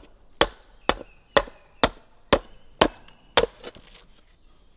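Side axe chopping along the edge of a split wooden shingle, trimming it so that it will sit flat. Sharp, even strikes come about twice a second, around nine in all.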